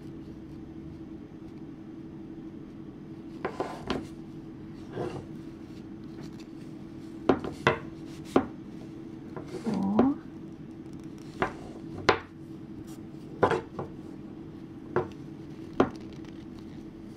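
Wooden straight knitting needles clicking and tapping against each other as stitches are purled in chunky yarn: sharp, irregular clicks about once a second over a steady low hum.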